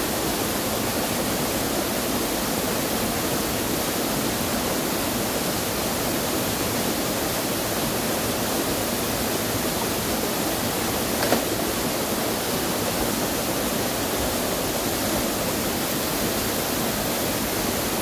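Small waterfall pouring into a rock pool: a steady rush of falling water, with one brief knock about eleven seconds in.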